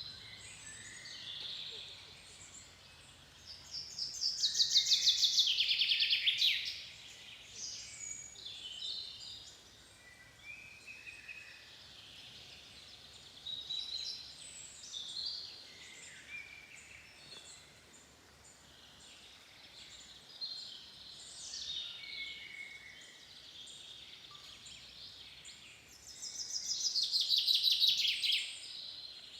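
Songbirds singing in a forest: several birds call and sing over a faint steady hiss. Twice, about four seconds in and again near the end, one bird sings a loud song of rapidly repeated notes that fall in pitch.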